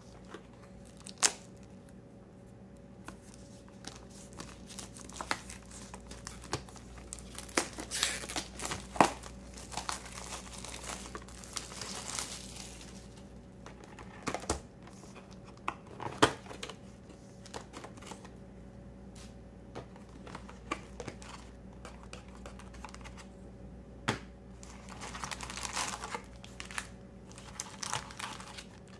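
Plastic shrink wrap crinkling and tearing as it is pulled off a cardboard trading-card booster box, with a few sharp taps and knocks as the box is handled. Near the end there is more crinkling as the box is opened and the foil booster packs are handled.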